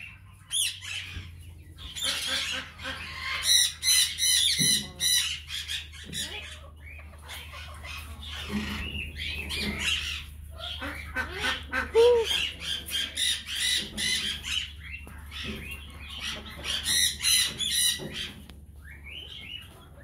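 Birds in an aviary squawking and chirping in clusters of short, quickly repeated high calls, over a steady low hum.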